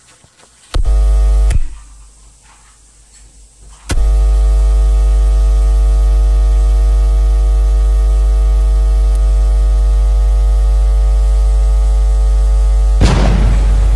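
Loud, steady electrical buzz with many overtones. It sounds briefly just under a second in, then again from about four seconds for about nine seconds, and ends in a short burst of noise.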